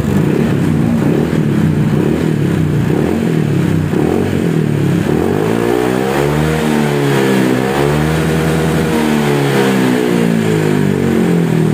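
Honda PCX 160 scooter's single-cylinder engine running through an aftermarket 'super bass' slip-on exhaust: steady idle, then revved up from about halfway and let back down to idle near the end. The exhaust note is a mellow growl, not noisy.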